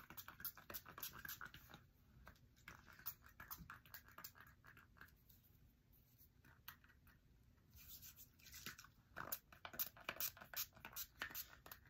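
Faint scattered clicks and rustles of small objects being handled close to the microphone, sparse at first and coming thicker in the last few seconds.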